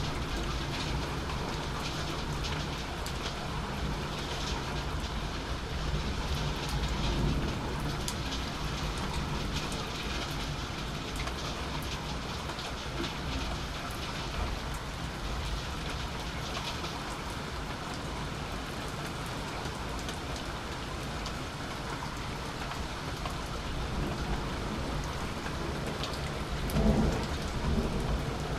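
Steady rain falling during a thunderstorm, drops pattering close by, with a low rumble of thunder underneath. A louder burst comes near the end.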